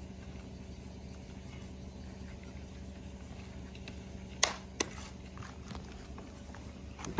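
Steady low background hum, with two sharp knocks about four and a half seconds in, less than half a second apart.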